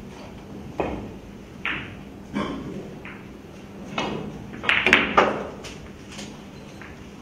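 Sharp clicks of pool balls about once a second, then a loud cluster of clicks about five seconds in as a cue strikes the cue ball and the balls knock together, followed by a few fainter clicks.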